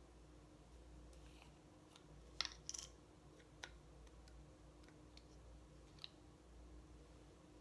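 Near-silent room tone with a few faint clicks and taps from a small cosmetic jar being handled: a short cluster about two and a half seconds in, then single clicks near four and six seconds.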